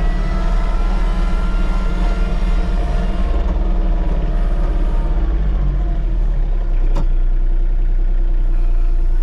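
Compact hydrostatic tractor driving with the engine running steadily, heard from inside its enclosed cab. The engine speed is tied to the hydrostatic drive pedal through the linked-pedal auto throttle. A single sharp click comes about seven seconds in.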